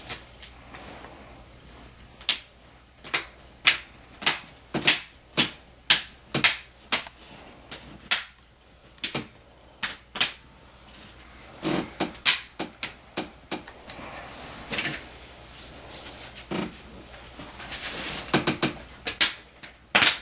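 Plastic screen bezel of a Gateway ID49C07u laptop being pressed in around the lid, its clips snapping into place in a series of sharp clicks, about two a second at first, then in short clusters after a pause.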